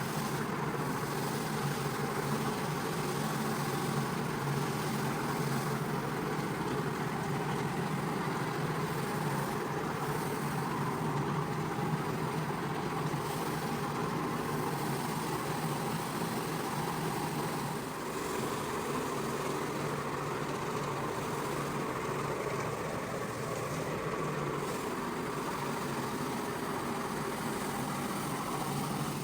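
Motor of a carpet-cleaning machine running steadily: a constant low hum under a broad hiss that drops off at the very end.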